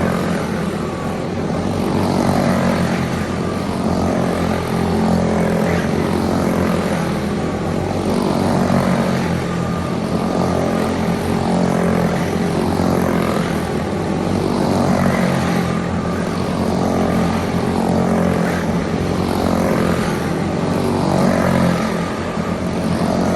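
A pack of racing karts with Briggs & Stratton Animal four-stroke engines running at race speed. The engine note rises and falls in pitch over and over, about every two seconds.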